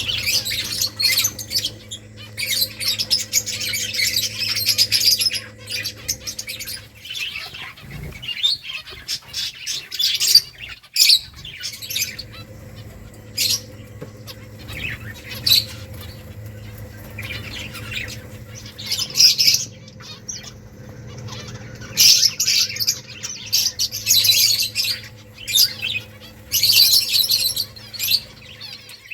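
Small pet finches chirping in rapid clusters of short, high calls, some bursts loud and busy, with pauses between. A steady low hum runs underneath, dropping out for a few seconds about a quarter of the way in.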